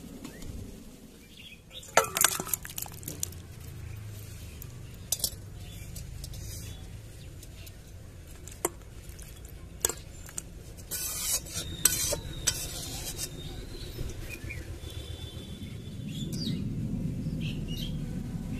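Metal spatula scraping and clinking against a steel wok and bowl as chicken curry is scooped out. The clinks are sharp and scattered, loudest about two seconds in and again around ten to twelve seconds in, over a low steady background.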